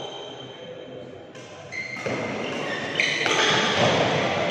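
Badminton doubles rally in an echoing sports hall: rackets hitting the shuttlecock and players' shoes moving on the court, busier and louder from about two seconds in.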